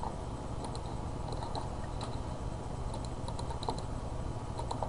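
Computer keyboard keys clicking in short, irregular taps, entering drawing commands, over a steady low hum.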